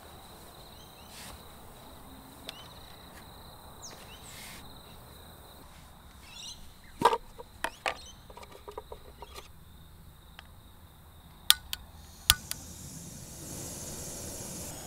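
Outdoor background of a steady high insect trill with a few short bird chirps, broken by a handful of sharp knocks and clicks about halfway through and again later on. A soft hiss rises near the end.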